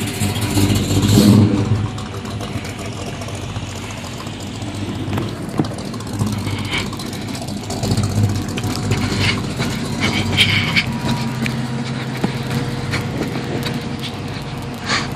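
Engines of classic Mopar cars running as they drive slowly past one after another. The sound swells as a car passes about a second in and again near the middle.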